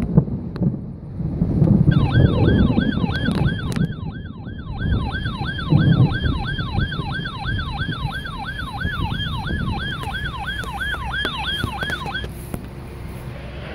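A siren yelping in a fast, even cycle of about three sweeps a second, each dropping from high to lower pitch and back up. It starts about two seconds in and cuts off near the end. Under it, low rumbling of thunder is strongest in the first half.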